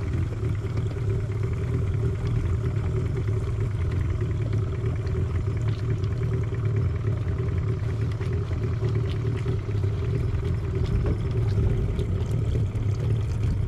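Outboard motor running steadily at low throttle, pushing a small boat slowly ahead.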